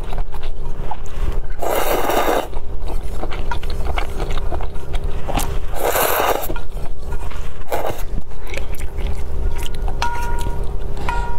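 Close-up mouth sounds of someone eating noodle soup: two loud slurps, about 2 and 6 seconds in, of broth sipped from the bowl's rim and of noodles sucked up, plus a shorter slurp and small chewing and lip noises between them. There is a brief squeaky sound near the end.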